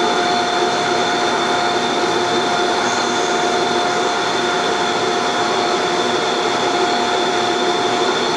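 Steady whir of a small electric motor, a constant whine over an even rushing noise.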